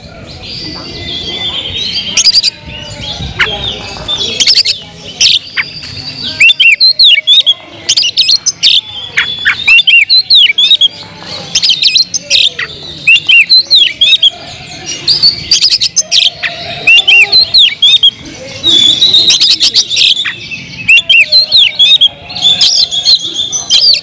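Oriental magpie-robin singing a fast, varied song of short whistled notes that sweep up and down, mixed with sharp clicks, in loud phrases that run almost without pause. This is the full, busy song that keepers call 'gacor'.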